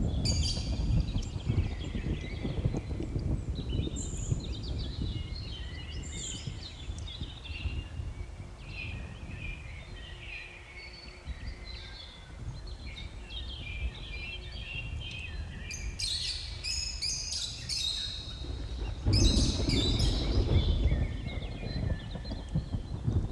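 Birds chirping and calling over a constant low rumbling background noise. A bout of rapid, dense chirping comes about two-thirds of the way in, and the low rumble swells louder shortly after.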